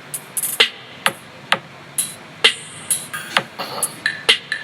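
Electronic dance remix with a drum-machine beat, about two hits a second, played through a budget JBL Charge 3 Mini Bluetooth speaker.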